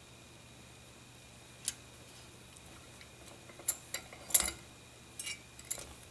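Light metallic clicks and clinks from a small drill-press vise being opened by its screw handle and the shotgun's compressed mainspring assembly, the spring and guide held by a small brass rod, being lifted out. The clicks come singly and scattered, the loudest about four seconds in.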